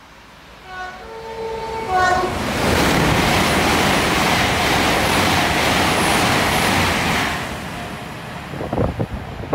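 GWR Class 800 train sounds a short two-tone horn as it approaches, then runs through the station at speed with a loud, steady rush of wheels and air for about five seconds that fades as it goes by. Near the end, wind buffets the microphone.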